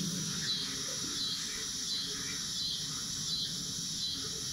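Outdoor ambience of insects chirring steadily, with faint bird calls now and then.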